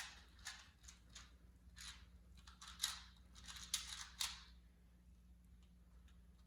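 2x2 Rubik's cube being turned quickly by hand: a fast run of short plastic clicking and scraping turns for about four and a half seconds, then only a few faint turns.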